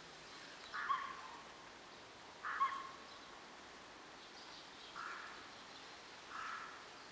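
Four short, harsh animal calls spaced a second or two apart, the first two the loudest.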